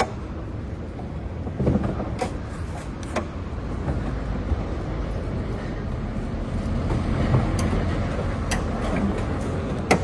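Vehicle noise from the road, a steady low rumble that grows a little louder in the second half, with a few short, sharp clicks and knocks.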